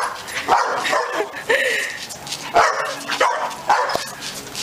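A puppy barking: a run of short, high yapping barks, about seven of them, one after another.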